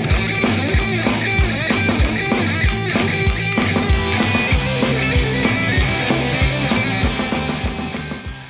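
Rock music with a steady, driving drum beat, fading out near the end.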